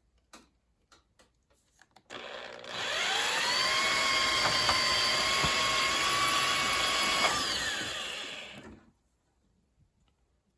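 Electric motor of a powered wire stripper starting with a rising whine, running at a steady pitch for about five seconds as a length of copper wire is fed through, then winding down and stopping. A few light clicks come before it starts.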